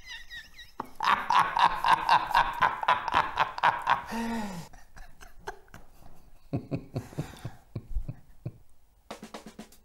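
Two men laughing, a hearty run of rapid laughter for a few seconds that then trails off into quieter chuckles.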